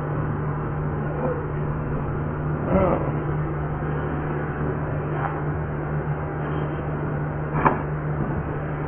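Steady low mechanical hum of running shop equipment, holding one constant low tone under a noisy haze. Two short knocks come through, about three seconds in and near the end.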